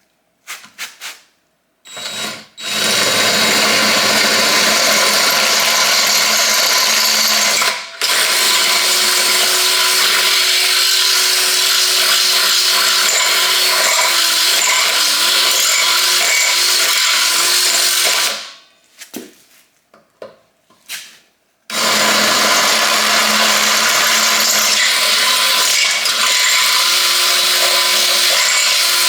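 Electric drill running at full speed as a bit enlarges a hole, in two long runs: it stops about eighteen seconds in, gives a few short blips of the trigger, and starts up again about three seconds later.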